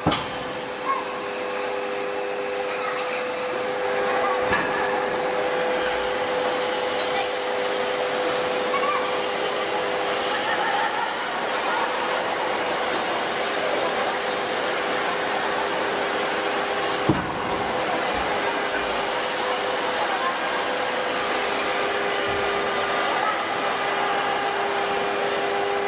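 Large forging press and shop machinery running with a steady whirring drone and a constant hum, while the press forms a red-hot steel plate into a dished head. A single sharp knock comes about two-thirds of the way in.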